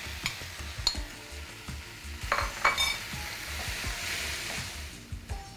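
Boiled white peas tipped into a nonstick frying pan of sizzling tomato-spice masala and stirred in with a wooden spatula: scraping and knocks over a frying sizzle that swells about four seconds in.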